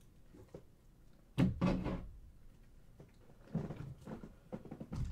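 Several dull knocks and bumps of objects being handled and set down on a tabletop, in two short clusters about a second and a half and three and a half seconds in.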